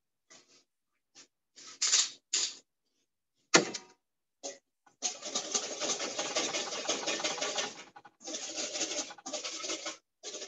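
A few scattered clinks and a sharp knock in the first half, then a wire whisk beating hollandaise sauce in a stainless steel bowl: fast, continuous clicking and scraping in runs of a few seconds.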